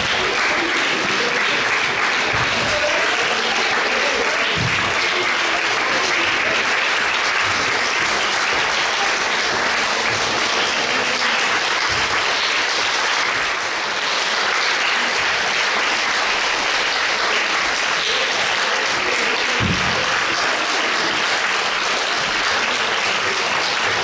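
Audience applauding steadily, a dense wash of many hands clapping, easing briefly about halfway through before carrying on.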